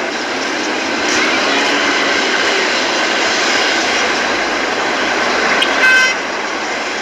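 Busy street noise with traffic, and a vehicle horn honking briefly near the end.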